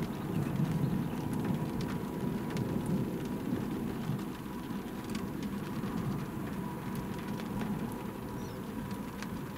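Rain drops ticking on a car's windshield and body, heard from inside the parked car, over a steady low rumble.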